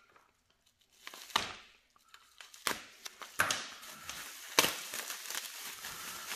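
Plastic bubble wrap crinkling and rustling as it is pulled open by hand from around a phone. A few sharp crackles come apart after the first second, then the rustling runs on continuously through the second half.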